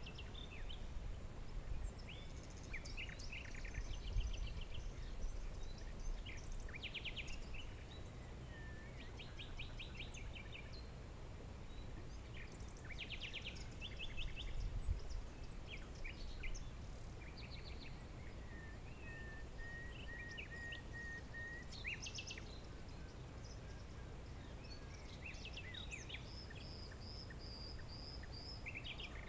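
Several songbirds singing and calling, with short chirps and fast trills throughout, a long level whistled note a little past the middle and a high trill near the end, over a steady low background rumble.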